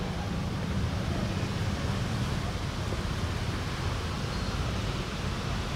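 Steady low rumble of outdoor background noise, with no clear events standing out.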